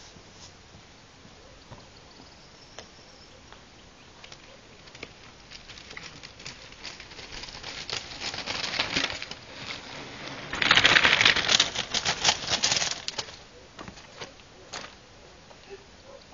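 Birds' wings flapping in quick, dense runs of claps and flutter that build up and are loudest for a couple of seconds from about ten and a half seconds in, then thin out to a few scattered claps.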